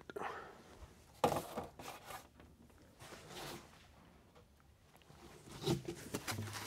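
Cardboard and plastic-wrapped packing being handled in an open shipping box: a few short, quiet scrapes and rustles. The clearest comes about a second in, and a few more come near the end.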